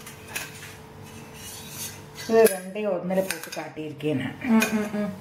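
Steel on steel: a stainless-steel puttu tube and its push rod scraping and rubbing against a steel plate as the steamed puttu is pushed out. The scraping is faint at first, then about two seconds in turns into louder squeaky metal scrapes.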